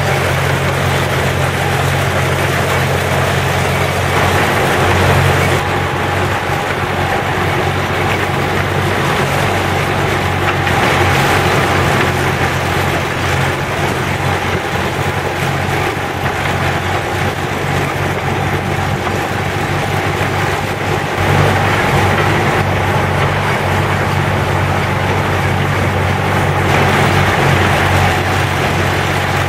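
Engine of a small narrow-gauge diesel locomotive running steadily as the train travels along the track, heard from on board with a constant low hum.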